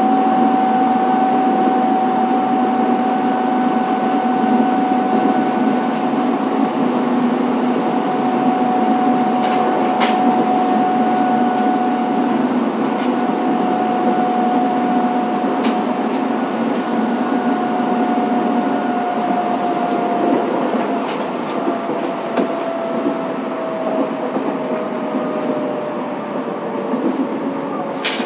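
Fukuoka City Subway 2000 series train heard from on board while running: a steady rumble of wheels on rail under a steady whine. About two-thirds of the way through the whine slides lower as the train loses speed, and a few sharp clicks come from the track.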